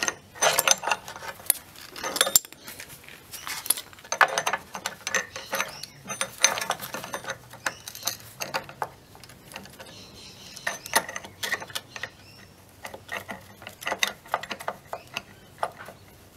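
Steel gear puller clinking and rattling against a mower's steel drive sprocket as its arms and jaws are handled into place: irregular bouts of metal-on-metal clicks and clatter.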